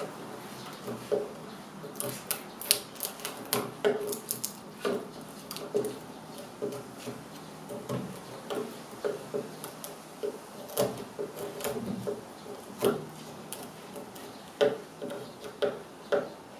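Narrow chisel blade scraping and picking at the wooden top edge of a chest of drawers, digging out crumbly wood: irregular short scrapes and sharp ticks, several a second.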